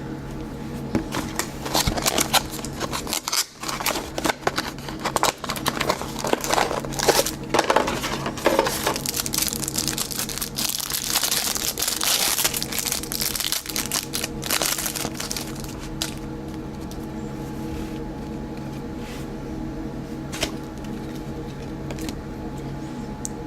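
Plastic or foil trading-card wrappers crinkling and tearing as cards and packs are handled, dense crackling for the first fifteen seconds or so, then only occasional clicks over a steady low hum.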